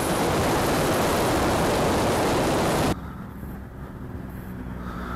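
Loud rushing wind and propeller noise picked up by a camera riding on an electric RC aerobatic plane in flight, which cuts off abruptly about three seconds in. The much quieter sound left after it is the plane's electric motor buzzing faintly from a distance.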